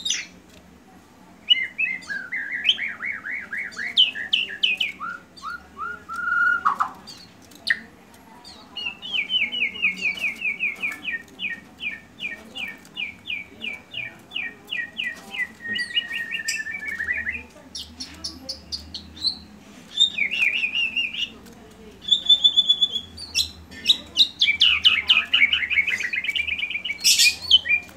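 White-rumped shama (murai batu) singing a loud, varied song of rapid trills, short whistles and a long run of repeated notes at about four a second, its phrases packed with mimicked calls of other birds.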